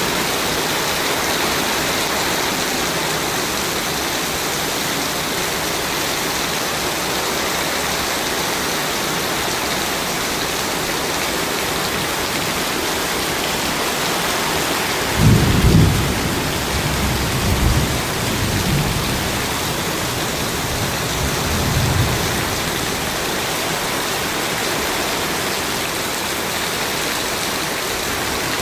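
Steady rain falling, with low rumbles of thunder about halfway through: a louder roll lasting a few seconds, then a weaker one shortly after.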